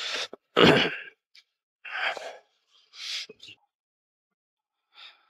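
A man's short breathy sighs and exhalations close to the microphone, four or five in a row, the loudest about half a second in.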